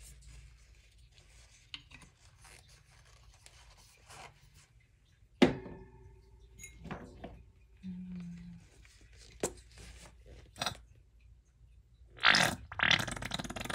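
Paint containers being handled on a work surface: scattered clicks and knocks, one sharp one about five seconds in. A louder scraping rustle follows near the end.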